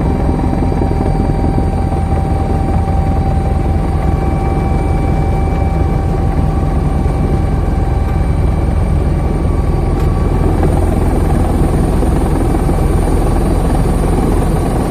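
A navy helicopter's turbine engine and rotor running steadily and loudly, with a steady high turbine whine over the rotor noise.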